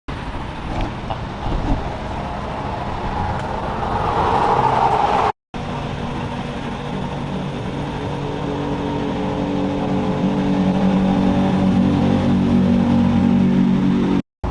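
A motor running with a steady hum that rises slightly in pitch, broken off twice by sudden cuts.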